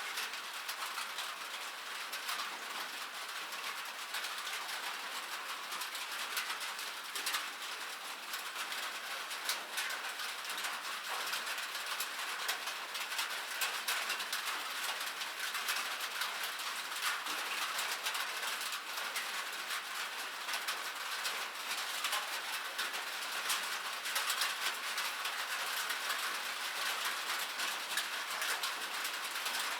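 Steady rain falling on metal: a dense, even patter of countless small drop taps over a constant hiss.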